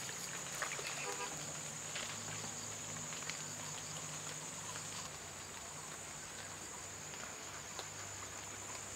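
Insects droning steadily at a high pitch, with a faint steady low hum beneath and a few faint ticks about a second in.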